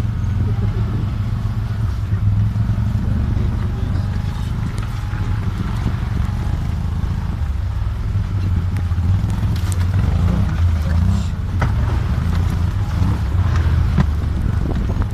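Side-by-side off-road vehicle's engine running steadily as it drives over a rough dirt trail, a continuous low drone. A few sharp knocks from the bumps, one about eleven seconds in and one near the end.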